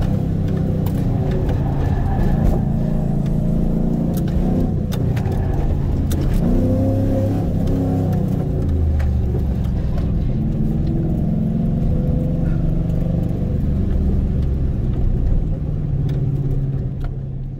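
Chevrolet Camaro's engine being driven hard, its revs climbing and dropping again and again under acceleration and lifting off.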